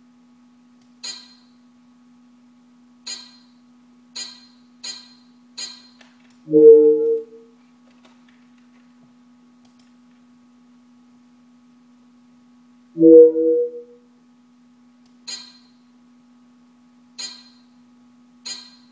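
Computer interface sounds: short sharp clicks, five in the first six seconds and three near the end, and two brief chimes of a few notes each, about six and a half and thirteen seconds in, with a faint steady hum underneath.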